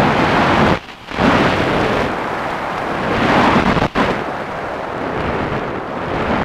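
Loud rushing airflow and propeller noise buffeting the microphone of a camera riding on an RC plane in flight, cutting in abruptly and dropping out briefly about a second in and again near the four-second mark.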